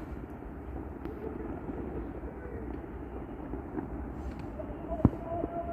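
Steady outdoor rumble of a city down in a valley, with one sharp bang about five seconds in.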